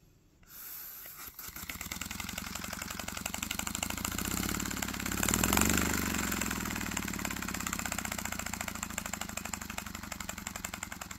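Single-cylinder paper model air engine running on breath blown through a pen tube, its paper exhaust puffing in a very fast, even beat. It picks up over the first second or two, is loudest about halfway through, then runs on slightly quieter.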